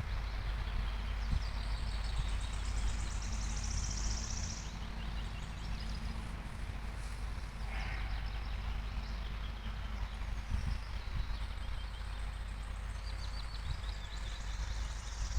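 Songbirds singing fast, high trills, once early on for about three seconds and again near the end, with a single shorter call about halfway through. Under them runs a steady low rumble.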